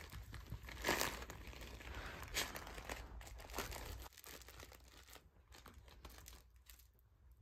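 Plush crinkle toys rustling and crinkling as two miniature dachshunds nose and root among them in a plush toy bed, with many short crackles; busiest for the first four seconds, then thinning and fading.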